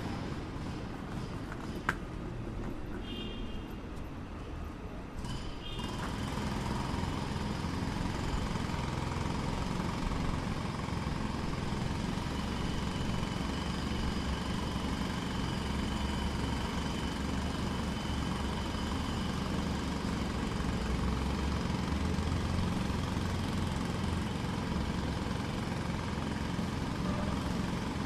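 Handheld jackhammer hammering steadily, the sound thickening and growing louder about six seconds in.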